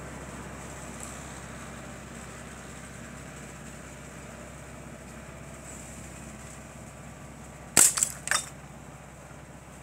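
A glass bottle shattering under a .22 air-rifle pellet hit: a sharp crack of breaking glass near the end, then a second crash of glass about half a second later.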